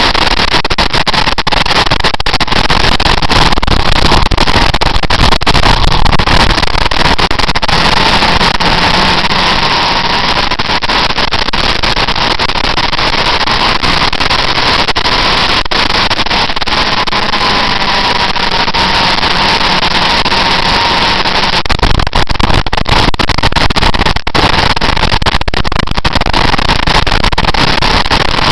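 Motorcycle ridden at speed, heard through a camera mounted on the bike: a loud, continuous rush of wind buffeting the microphone over the engine note, which slowly rises and falls with the throttle through the bends. The low rumble and buffeting grow heavier about three-quarters of the way through.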